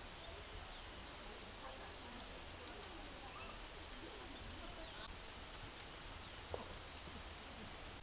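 Faint outdoor background with distant voices and birds, and a single short tap about six and a half seconds in.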